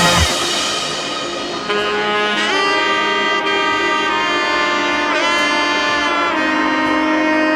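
Background music with long held lead notes that slide in pitch twice, over a steady low note.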